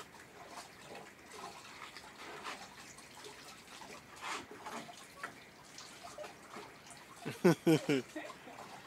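Water splashing and dripping as a dog's wet coat is washed and rubbed by hand, faint and irregular. About seven seconds in comes a short, louder vocal sound.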